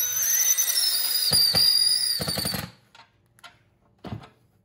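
Cordless power driver running for about two and a half seconds, driving a screw to fasten a leg onto a foam coyote manikin. A light knock follows near the end.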